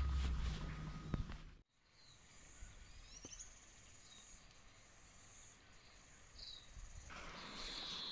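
Outdoor ambience by a river: a low rumble cuts off sharply about one and a half seconds in. Then come a few short high bird chirps over a faint steady high insect hiss, and a louder background hiss returns near the end.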